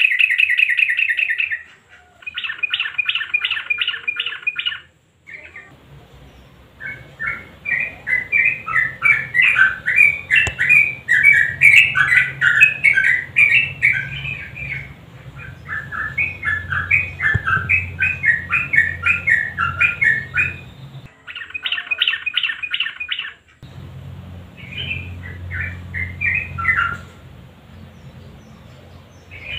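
Yellow-vented bulbul song: bursts of fast, repeated chattering notes, the longest phrase running over ten seconds. The bursts are broken by abrupt cuts between spliced recordings, with a low hum under some of them.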